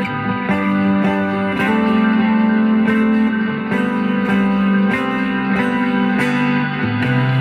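Electric guitar, a Stratocaster fitted with Fender Player Series pickups, played through an amp: slow, sustained notes and chords that ring out, moving to a new chord every second or two. The playing shows off the swapped-in pickups.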